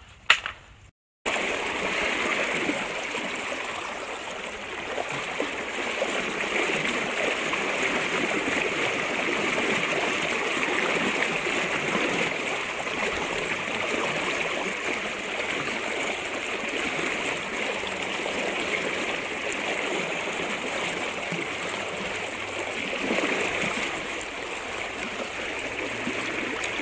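Swollen, fast-flowing river water rushing and churning around the legs of someone wading in it, a steady rush that starts after about a second of near silence.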